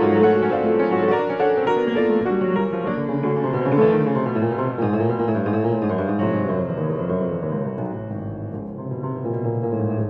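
Grand piano played solo in a classical piece: a dense, flowing passage of many notes that grows softer about eight seconds in, then fills out again.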